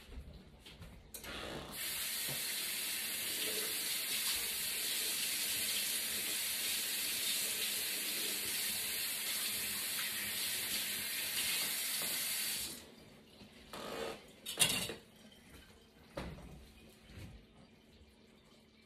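Kitchen faucet running steadily into the sink, turned on about a second in and shut off abruptly after some eleven seconds. A few knocks follow, one of them sharp.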